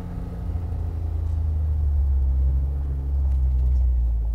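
John Deere Gator 825i utility vehicle's three-cylinder gasoline engine running steadily as the vehicle drives, a low drone that grows somewhat louder over the first few seconds.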